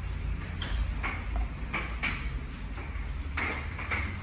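A plastic syringe and gear-oil bottle being handled while the ATV gearbox is topped up with oil: a run of short, irregular rustling and scraping noises, about two a second, over a low steady hum.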